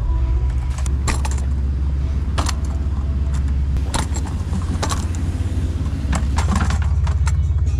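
Metal clinks and clanks from a car-wash vacuum's debris canister being unlatched and handled, its wire latch clips and metal drum knocking, over a steady low rumble.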